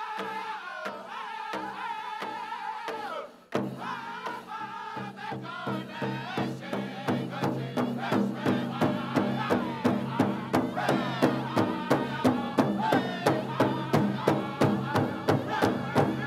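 Powwow drum group singing high, wavering vocables over a big drum for the Prairie Chicken dance. After a brief break about three and a half seconds in, the fuller group song comes in over a steady drumbeat of about two beats a second, and the beats grow louder toward the end.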